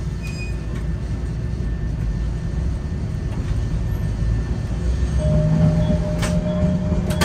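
Nagasaki Electric Tramway streetcar running along its rails with a steady low rumble. A steady hum joins about five seconds in, and a few sharp clicks come near the end.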